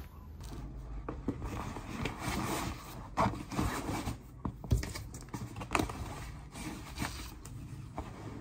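Items being packed into a canvas tote bag: fabric rustling and scraping, with irregular knocks and clacks, the sharpest a little under five seconds in.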